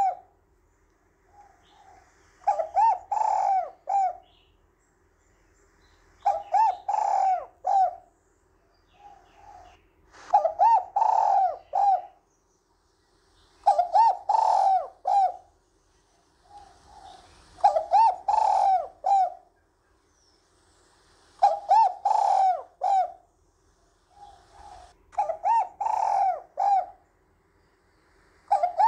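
Spotted dove cooing: the same phrase of several rolling coos repeated eight times, about every three and a half seconds, each phrase led in by a short soft note.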